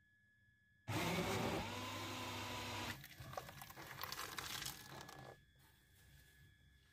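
Electric blender motor starts abruptly about a second in and runs steadily for about two seconds. Then thick puréed lentil soup is poured into a metal pot with uneven sloshing and splattering, fading out about two seconds before the end.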